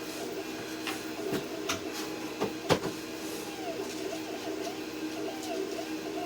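Laser cutter running: a steady machine hum with the motors whirring up and down in pitch as the head moves back and forth. A few sharp taps sound over it, the loudest a little under three seconds in.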